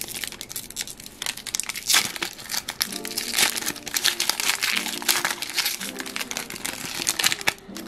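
Foil-lined Prizm World Cup trading-card pack crinkling and crackling as it is torn and peeled open by hand. Background music with steady held notes comes in about three seconds in.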